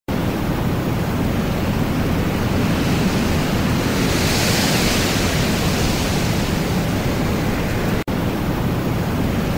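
Loud, steady rushing noise like surf or static, swelling slightly around the middle, with a brief dropout about eight seconds in.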